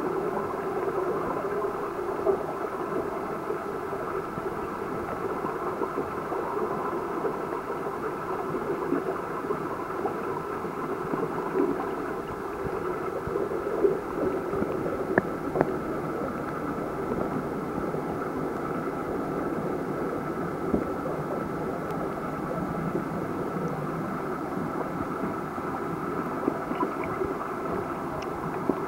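Steady muffled rush of water picked up by a submerged camera, with a faint steady tone and a few small clicks.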